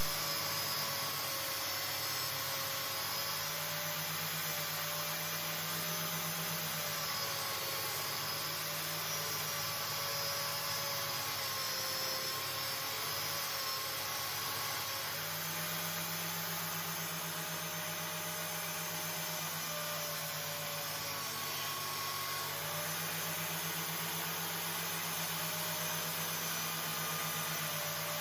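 A small electric power tool running steadily while working wood, a constant motor hum and whine that wavers slightly in pitch as the load changes. A sharp click right at the start.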